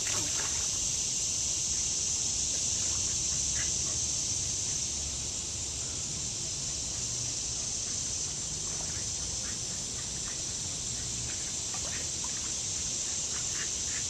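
Steady high-pitched chorus of summer insects over the low wash of the river's flowing water, with a few faint splashes as the dog wades.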